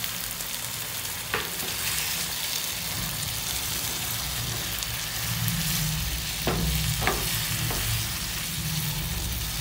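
Cauliflower and mushrooms in a cream of mushroom sauce sizzling in a frying pan while a spatula stirs them, a steady hiss. The spatula clicks against the pan a few times, once early and three times in a row later on.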